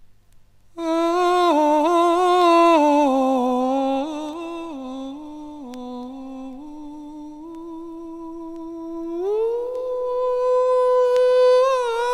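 A lone wordless voice humming an unaccompanied melody. It wavers and steps down through several notes, then about nine seconds in slides up to a higher note and holds it with a slight waver.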